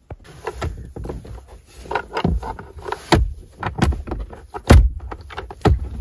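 Plastic glove box lid of a 1987 Nissan Pulsar pushed against the dash with its new 3D-printed latch, giving a series of sharp plastic knocks, loudest a little past three seconds and again just before five. The latch fails to catch because it doesn't come up high enough.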